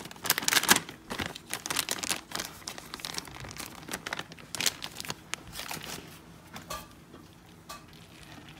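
Plastic bag of shredded cheese crinkling as it is squeezed and shaken out over a bowl of macaroni. It is busiest in the first five seconds and fades to fainter rustles after.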